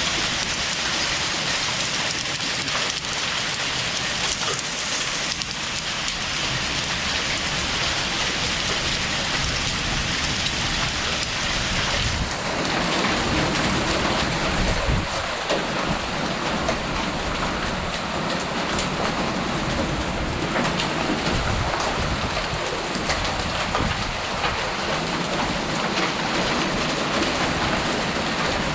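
Heavy, wind-driven rain pouring steadily in a thunderstorm, with gusts of wind rumbling on the microphone from about halfway through.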